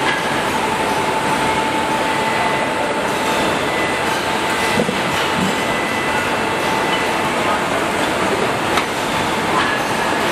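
Steady mechanical din from a double-colour EVA foaming press running, with a faint steady whine and a couple of sharp clicks.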